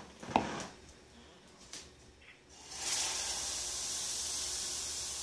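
Pancake batter sizzling in a hot pan: a steady hiss that starts suddenly about three seconds in, after a light knock near the start.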